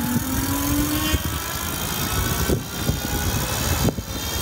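Ezee Forza electric bike's hub motor whining under full throttle, its pitch rising as the bike accelerates from a standstill until about a second in. After that a steady rush of wind and road noise, with a couple of short knocks.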